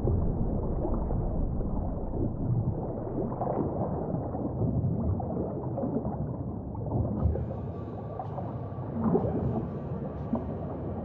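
Muffled underwater sound picked up by a camera below the sea surface: a low, rumbling wash of moving water with gurgling. Faint clicks and crackles join in from about seven seconds in.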